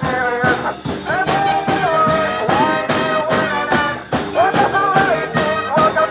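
Brass band playing live: horns hold and slide through melody lines over a steady beat.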